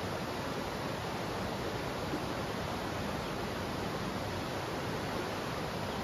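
Steady, even rush of a river flowing over rocks, unbroken and unchanging.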